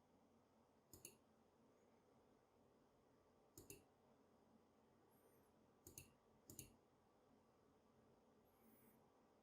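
Keys on a HyperX Alloy Origins Core mechanical keyboard pressed one at a time, four faint, sharp clicks a second or more apart, each a quick double snap of the key going down and coming back up.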